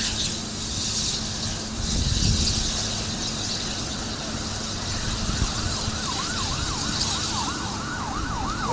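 An emergency vehicle siren comes in about six seconds in, in a rapid up-and-down yelp of a couple of sweeps a second, growing stronger. Before it there is only a steady rushing background noise.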